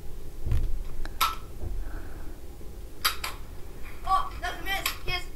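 Faint voices, with a few sharp clicks, one about a second in and a pair about three seconds in.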